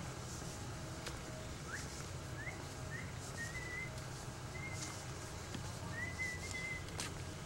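A series of short, clear, high whistled notes: a few quick upward slurs, then several brief level notes, over a steady low background noise.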